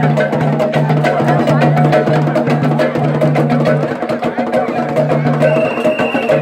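Kundum festival music with fast percussion: rapid clicking wood-block-like strikes and drums over a low note that pulses on and off, with crowd voices mixed in. The low note drops out for about a second partway through, and a thin high whistle-like tone sounds near the end.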